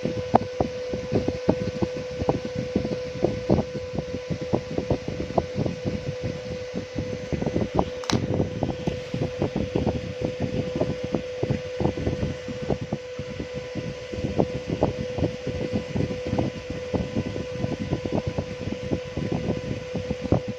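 Steady hum of a small electric fan, with many light, irregular clicks and taps over it and one sharper click about 8 seconds in.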